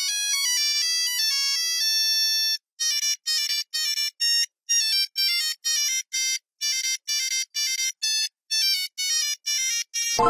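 Nokia 3310 monophonic ringtone: a quick stepping melody of pure electronic beep notes for about two and a half seconds, then after a short break a longer tune of short, detached beeps, several a second. A louder chime cuts in at the very end.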